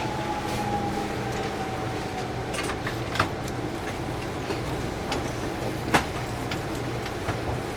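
JR Central 373 series electric train running, heard from inside the car as it approaches its terminus: a steady rumble of the running gear with a faint tone sliding slowly down in pitch over the first two seconds. A few sharp clicks come through, at about three seconds and six seconds in.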